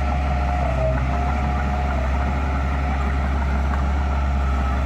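Heavy diesel earthmoving machinery running steadily, a deep engine drone with a thinner whine above it that wavers in pitch.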